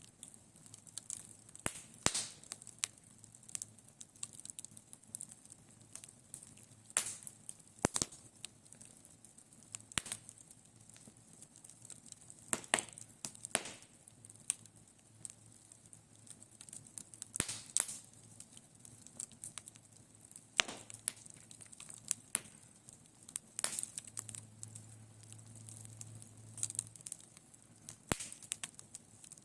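Wood fire crackling, with irregular sharp pops and snaps over a low, steady background.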